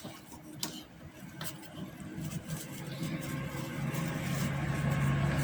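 An engine hum, like a passing vehicle, growing steadily louder. A few soft rustles and clicks of tissue wiping plastic fan blades come in the first couple of seconds.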